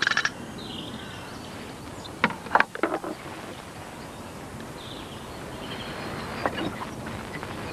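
A wooden football rattle's rapid clacking cuts off just after the start, leaving a quiet outdoor background with faint bird chirps. About two to three seconds in comes a cluster of sharp wooden knocks as the rattle is set down on top of a wooden weather screen, and a few smaller clicks follow near the end.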